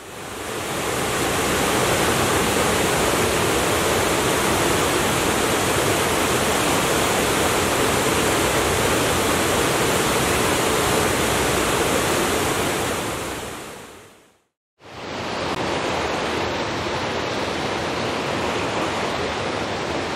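Small woodland waterfall rushing steadily as the brook spills over rocks. The rush fades out about fourteen seconds in and comes straight back, a little quieter.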